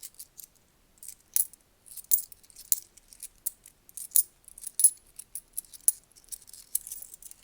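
Loose 10p coins clinking against one another as they are handled, a quick, irregular run of sharp little chinks.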